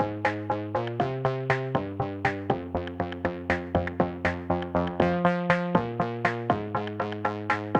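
Electronic background music: sustained synthesizer chords over a steady beat of about four hits a second.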